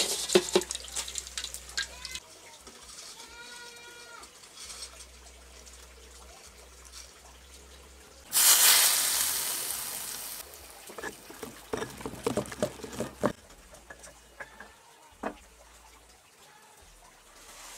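Hot oil and freshly fried fish sizzling on sambal in a stone mortar: a sudden loud hiss about eight seconds in that fades over about two seconds. Before it, a slotted ladle clinks in the wok; after it, a few sharp knocks.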